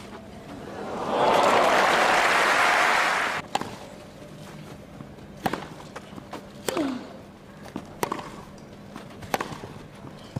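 Crowd applauding for about two and a half seconds after a point, then cutting off abruptly. After it come a handful of sharp, separate knocks about a second or so apart.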